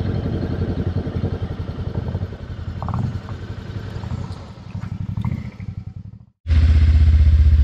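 Voge DS525X motorcycle's parallel-twin engine idling with an even, steady pulse. It drops out for a moment about six seconds in, then comes back louder.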